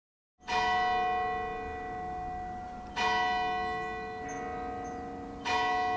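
A bell struck three times, about two and a half seconds apart, each stroke ringing on with a steady, slowly fading tone.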